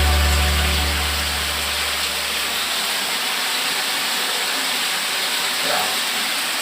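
Steady rushing of a waterfall, an even hiss with no clear pitch. The tail of a music track fades out under it over the first couple of seconds.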